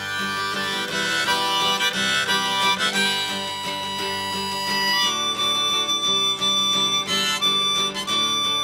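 Instrumental break of a folk song: a harmonica playing sustained melody notes over strummed acoustic guitar.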